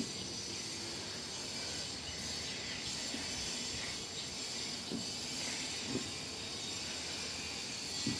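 Hands kneading crumbly rice-flour and tapioca-starch dough on a stainless-steel table: soft thuds and rubbing as the palms press the mix down, over a steady hiss.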